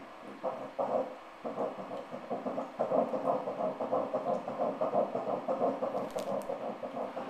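Fetal heartbeat played through an ultrasound machine's Doppler speaker: fast, rhythmic whooshing pulses, about three a second, starting about half a second in and growing stronger after a few seconds. The rate is a healthy early-pregnancy heart rate of about 176 beats a minute.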